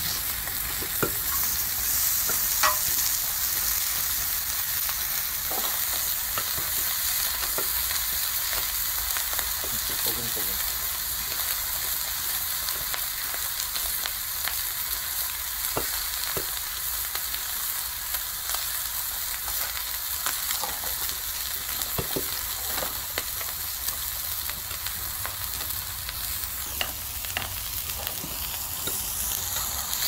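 Pork belly strips sizzling on a hot seasoned iron cauldron-lid griddle: a steady high hiss with scattered small pops and spatters.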